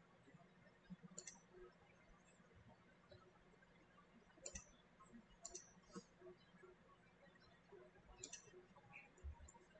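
Faint computer mouse clicks, about five short clicks spread out over a few seconds, over a faint steady low hum.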